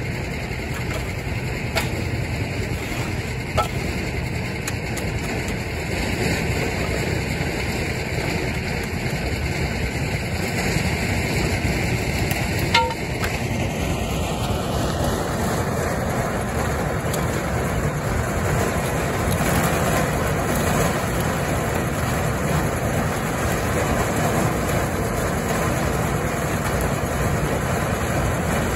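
An engine idling steadily, with a few light clicks and one sharper knock about halfway through.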